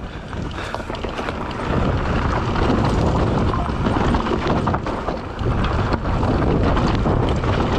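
Mountain bike rolling down a rough, rocky dirt trail: tyres crunching over stones and the bike rattling and knocking with many small clicks, with wind noise on the microphone. It gets louder about a second and a half in.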